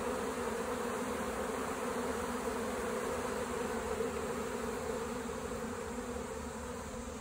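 A honey bee swarm buzzing steadily in a dense hum as the bees cover and march into a hive box, growing slightly fainter near the end.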